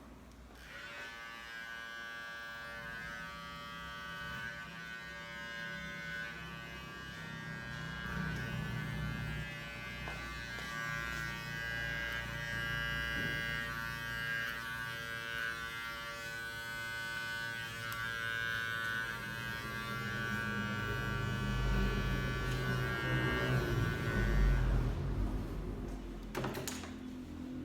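Cordless electric hair clipper running steadily with a buzzing hum that has a modified motor and an upgraded battery. It switches on about a second in, gets somewhat louder and heavier in the last third, then stops shortly before the end.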